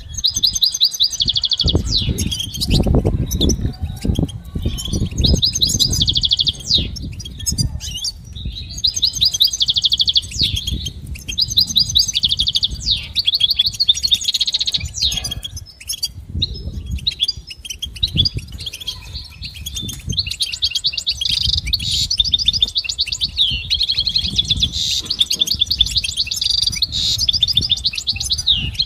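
European goldfinch singing: phrases of rapid, bright twittering trills broken by short pauses. A low, irregular rumble runs underneath.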